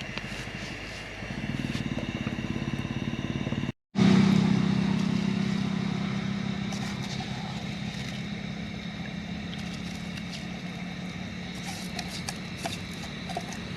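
A motor vehicle engine running with a steady low hum. It cuts out briefly just before four seconds, comes back at its loudest, and then slowly fades away.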